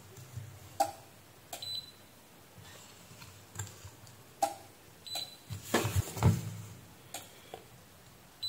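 Multimeter test probes tapping and clicking against a switch-mode power supply's circuit board and component leads. Sharp light clicks come every second or so, with a busier, louder cluster of handling noise about six seconds in.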